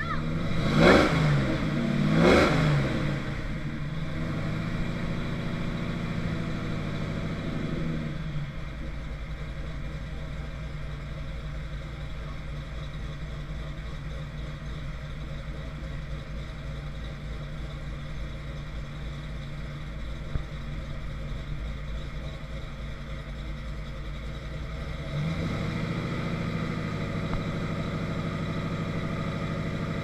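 Engine of a first-generation Chevrolet Camaro, heard from behind at the exhaust. It is blipped twice near the start, each rev rising and falling back, then idles steadily. The idle drops a step lower about eight seconds in and rises again a few seconds before the end.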